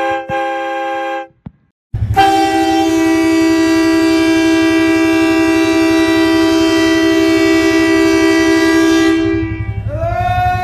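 Portable train horn powered by a cordless power-tool battery, sounding a loud multi-note chord. A short blast cuts off about a second in, and after a brief gap a long blast holds steady for about eight seconds. Near the end another blast starts, its pitch rising as it comes up.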